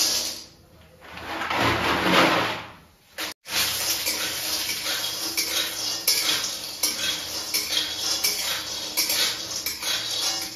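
Tilauri (sun-dried lentil badi) being stirred and scraped around in a kadhai, metal on metal, with frequent clinks. There is a brief break about three seconds in.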